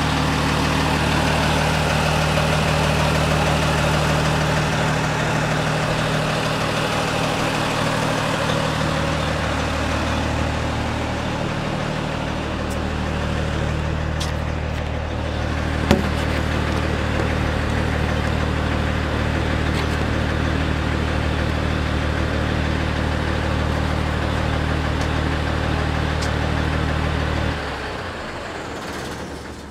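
Fire truck engine running steadily at idle, heard up close, with a single short knock about halfway through; the engine sound stops abruptly near the end.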